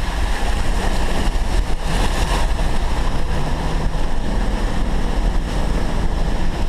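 Four-wheel drive driving on a rough dirt track, heard from inside the cabin: steady engine and tyre rumble, with a brief louder rush about two seconds in.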